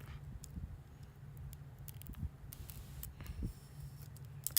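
Faint handling noise of a CD album's cardboard packaging being opened: scattered small clicks and taps with a soft rustle partway through.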